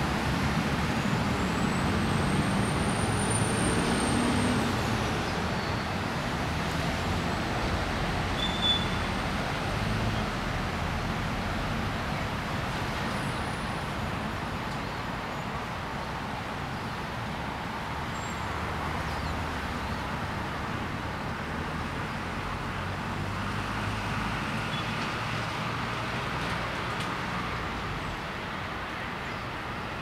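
Steady background noise of distant road traffic. A short high-pitched note cuts through about nine seconds in.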